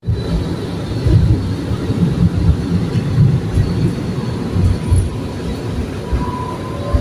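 Train running on the rails: a steady low rumble, with a faint thin high tone coming in near the end.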